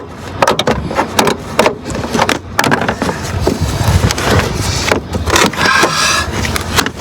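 Clicks, knocks and clatter of hand tools and plastic as a van's engine shroud is worked loose for an alternator swap. There is a steady low rumble underneath and a brief squeak about five and a half seconds in.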